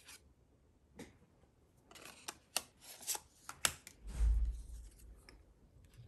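Cardstock being handled and freed from its sheet: a quick run of crisp paper snips and crackles a couple of seconds in, then a low thump on the table.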